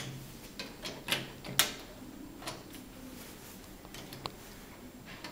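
Wooden toy train cars knocking and clicking against each other and the wooden track as they are pushed and coupled by hand: a scatter of sharp clicks, the loudest about a second and a half in.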